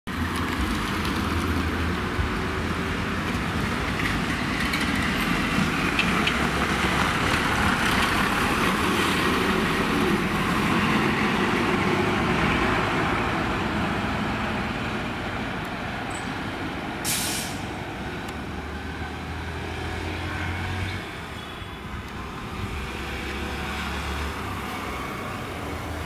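Tata lorry's diesel engine running as the truck rounds a hairpin bend, loudest near the middle and then slowly fading as it pulls away. A short hiss of air, typical of an air-brake release, about two-thirds of the way through.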